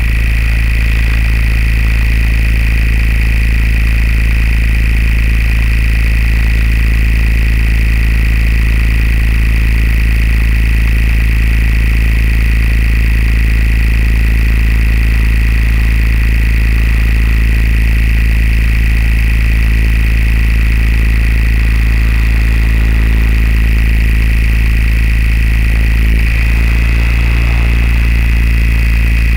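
Small aircraft's motors running steadily, heard close up through the onboard camera: a low drone with a constant high whine over it. The tones shift slightly near the end.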